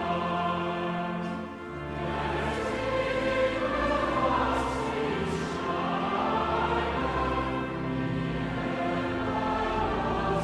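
Music: a choir singing with long held notes over sustained instrumental accompaniment.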